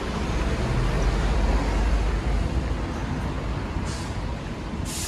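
Street traffic: a motor vehicle's engine rumbling close by, loudest about a second or two in, over the general hum of the road, with two short hisses near the end.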